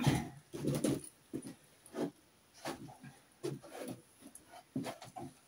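Irregular short knocks, scrapes and shuffles as a heavy black cast-iron stove is manoeuvred by hand.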